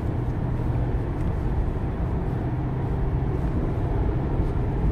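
Steady drone of a car driving, heard from inside its cabin.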